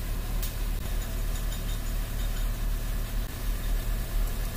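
Steady low engine-like drone running throughout, with a single sharp metallic click about half a second in as a socket wrench is worked on bolts in an engine's bottom end.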